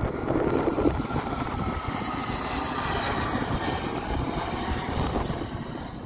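Dassault Falcon 900 trijet's turbofan engines running as it passes low overhead on landing approach, a steady jet rush with a high whine that sinks slowly in pitch and fades near the end. Wind buffets the microphone.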